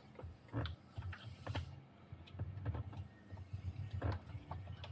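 Scattered light clicks and taps of loose plastic interior console trim being handled and shifted, over a low steady hum.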